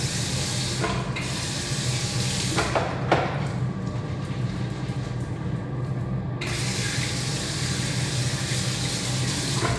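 Restroom sink tap running water over hands, stopping a little after three seconds in and starting again after six, with a steady low hum underneath. A few knocks sound around three seconds in.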